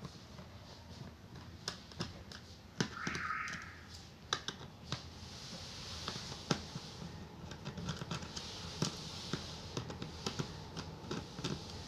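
Irregular small clicks and taps of a screwdriver and fingers working the screws on a Dell Inspiron laptop's plastic bottom case, with a soft hiss for a few seconds in the middle.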